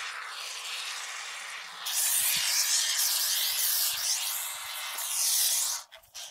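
Can of expanding spray foam hissing as foam is dispensed into a gap. The hiss grows louder about two seconds in and stops shortly before the end.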